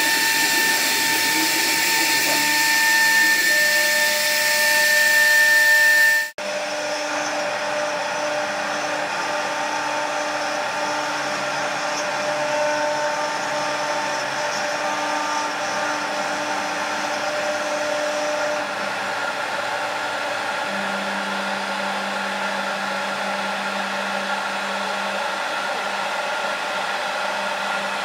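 CNC wood router running steadily as it carves, a continuous rushing machine noise with a steady high whine. About six seconds in the sound cuts off abruptly, then resumes as a similar steady machine drone with lower tones.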